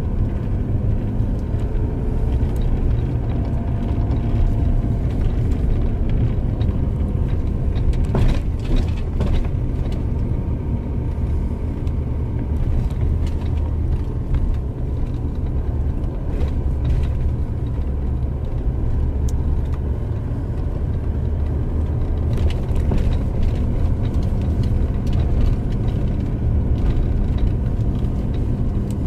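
Car interior road noise while driving: a steady low rumble of engine and tyres, with a few short clicks and knocks about eight seconds in and again after twenty seconds.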